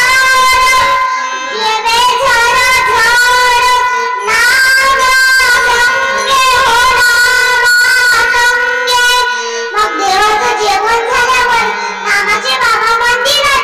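A child singing a devotional kirtan melody with long, wavering held notes over a steady harmonium accompaniment.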